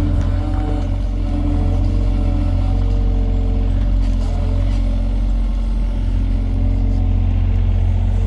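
A vehicle engine running steadily, a deep continuous rumble with some higher tones that come and go.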